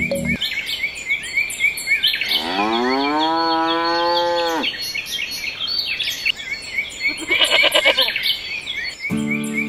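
A cow's moo, laid in as a sound effect: one long call that rises and then holds, over birds chirping steadily. A shorter, pulsing animal call follows, and music comes in near the end.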